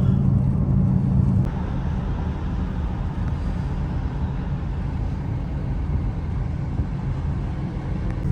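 Engine running steadily under a rushing noise of motion, easing off slightly about a second and a half in.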